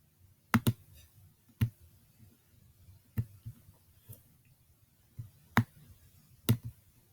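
Computer mouse clicking: sharp single clicks every second or two, the first a quick double click.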